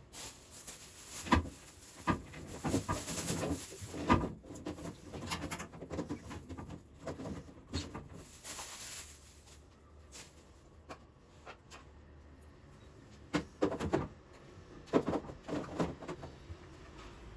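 Household items being handled and set down while a refrigerator is organized: scattered knocks and clunks with stretches of rustling, likely plastic containers and packaging. There are clusters of knocks in the first few seconds and again from about thirteen seconds in, with a quieter spell in between.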